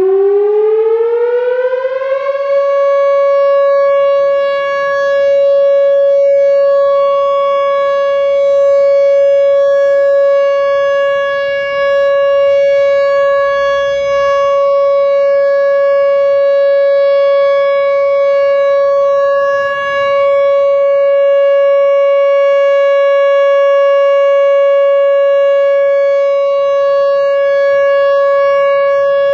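Whelen WPS-4004 electronic warning siren sounding its steady alert tone. It rises in pitch over the first two seconds, then holds one loud, steady tone rich in overtones, swelling and dipping slightly in loudness.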